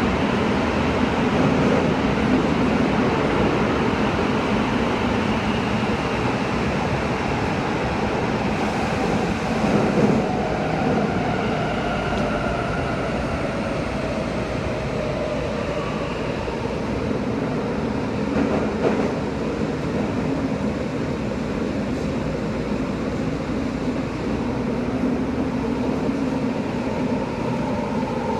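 Subway train running through a tunnel, heard from inside the car: a steady rumble of wheels and tunnel noise. A faint motor whine falls in pitch through the middle, as the train slows toward the next station.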